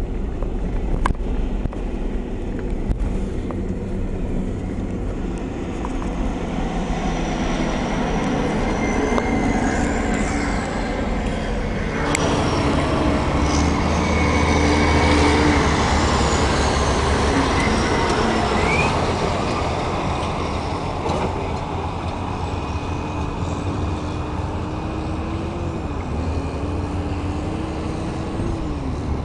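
Heavy diesel earthmoving machinery, wheel tractor scrapers and a motor grader, running while a vehicle drives across the dirt site. The heavy engine rumble swells to its loudest about halfway through as a scraper is close by, then eases off.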